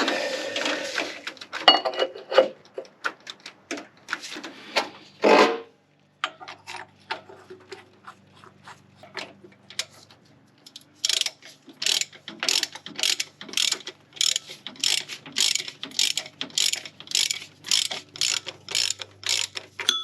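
Hand ratchet wrench clicking as bolts are run down: scattered clicks and knocks in the first few seconds, then, about halfway in, an even run of ratchet strokes at about two a second.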